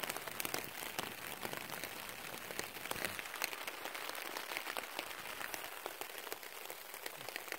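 Rain falling on a tarp overhead: a steady patter of many small drop ticks.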